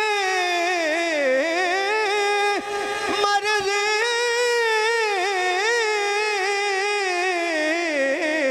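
A male voice singing an Urdu naat into a handheld microphone, drawing out long held notes with wavering, gliding ornaments.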